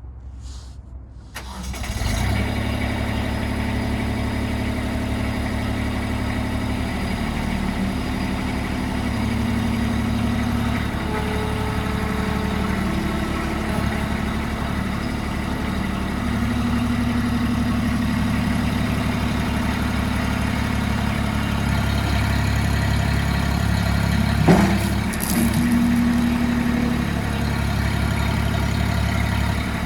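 Kubota B26 backhoe's diesel engine starting after a brief crank about a second and a half in, then running steadily, its note shifting now and then. A single sharp knock comes near the end.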